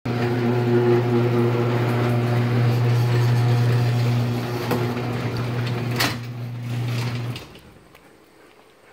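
A steady low motor hum that cuts off abruptly about seven seconds in, with a sharp click shortly before it stops.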